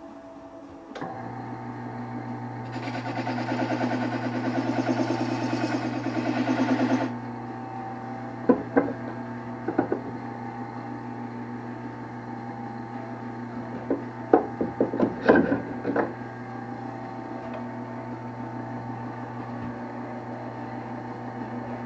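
An electric motor starts about a second in and runs with a steady hum. From about three to seven seconds a loud, rapid rasping rides over it. A few sharp knocks follow.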